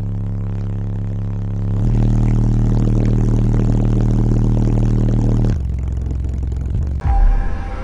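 Pride Audio 18-inch subwoofer in a ported box playing loud, bass-heavy music inside a car cabin: deep held bass notes that switch abruptly to new pitches every few seconds.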